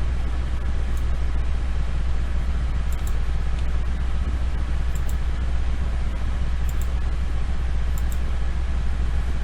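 Steady low-pitched hum and background noise from the recording setup, with a few faint mouse clicks every second or two.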